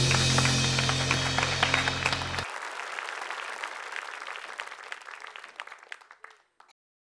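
Music with a steady low bass cuts off abruptly about two seconds in, followed by applause that fades away.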